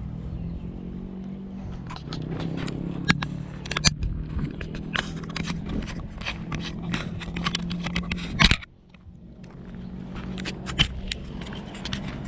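A vehicle engine running with a steady low hum, overlaid with irregular clicks and scrapes. A sharp knock comes about eight and a half seconds in, and the sound goes briefly quieter after it.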